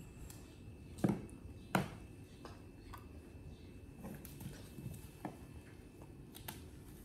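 A handful of irregular sharp knocks and taps, the two loudest close together about a second in, then lighter ones spread through the rest.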